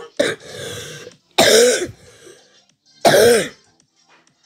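A person's voice making gagging, retching noises, as of someone about to be sick: short heaves at the start, then two loud ones about a second and a half apart, each falling in pitch.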